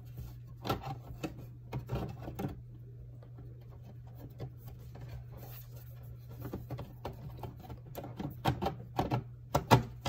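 The cover of a Lenovo M720Q tiny desktop being pressed and shifted back onto the chassis: scattered clicks and taps in two clusters, with one sharper click just before the end. The cover is proving tricky to seat. A steady low hum runs underneath.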